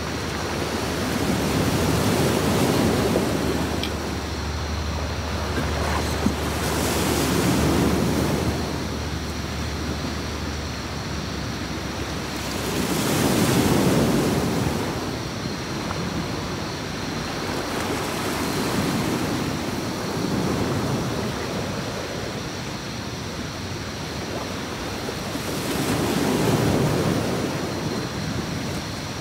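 Sea waves breaking and washing up a beach, swelling and fading in about five surges, roughly every five to six seconds. A low steady rumble lies under the first ten seconds or so.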